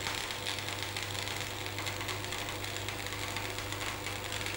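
Manual metal arc (stick) welding arc crackling steadily as the electrode lays the first root run along a bevelled V butt joint in steel plate, with a steady low hum underneath.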